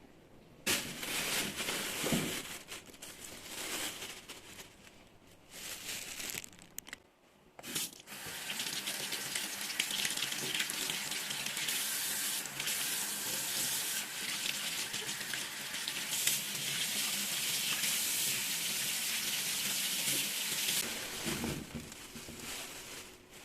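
Water running from a tap into a sink, in short bursts at first, then steadily for about thirteen seconds before it is turned off.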